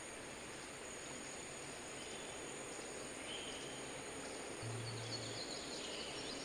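Rural outdoor ambience: a steady high-pitched insect drone, with faint bird chirps in the second half and a brief low hum near the end.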